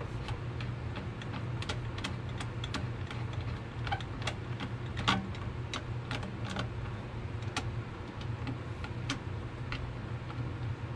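Screwdriver working a screw into the plastic housing of an Echo PB-250LN leaf blower, giving sharp, irregular clicks, the loudest about halfway through, over a steady low hum.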